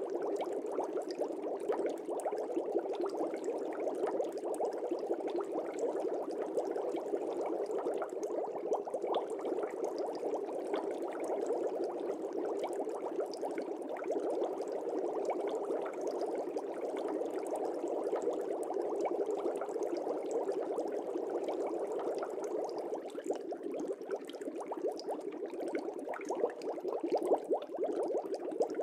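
Fish tank water bubbling steadily: a dense, unbroken stream of small bubbles popping.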